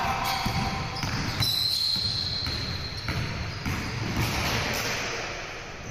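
A basketball bouncing on a hardwood gym floor during play, with repeated dull thuds. About a second and a half in there is a long, high, steady squeak.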